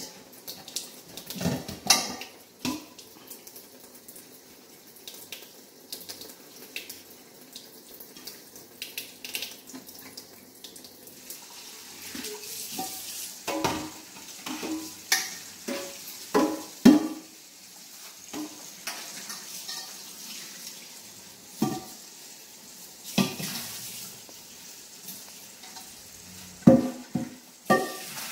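Stainless-steel Instant Pot inner pot being washed in a kitchen sink: a sponge scrubbing and the pot clanking and knocking against the sink at irregular moments, with tap water running while it is rinsed in the middle stretch.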